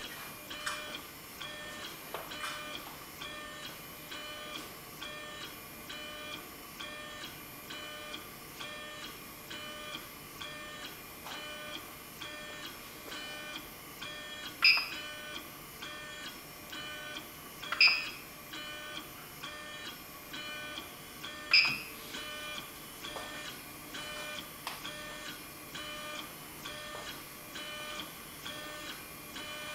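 3D printer stepper motors, driven by 64-microstep stepper drivers, whining softly as the axes move back and forth, the pitch switching in a regular rhythm. About halfway through, the printer's LCD controller gives three short, loud beeps as its control is pressed.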